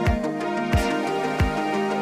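Background music with a steady beat, a low drum hit about every two-thirds of a second under sustained melodic notes.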